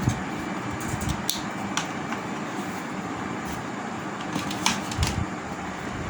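Small sharp clicks and taps of cable connectors being handled and plugged into a TV's circuit board, a few times, over a steady fan-like room hum.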